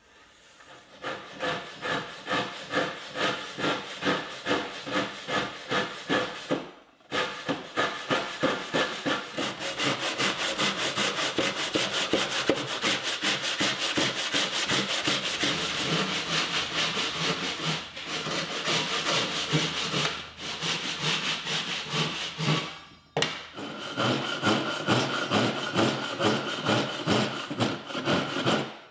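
Japanese pull saw cutting through a thick wooden board by hand in quick, rhythmic strokes, with a few short pauses.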